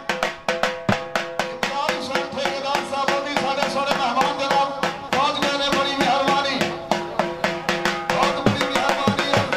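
Dhol drum beaten in rapid, even strokes, about six a second, with a steady pitched sound carrying over the beat.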